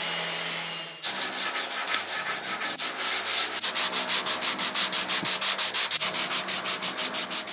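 A DeWalt random orbital sander running steadily on a low setting over a veneered wooden panel for about the first second. Then hand sanding: a folded sheet of sandpaper rubbed back and forth along a wooden edge in quick, even strokes, several a second, stopping near the end.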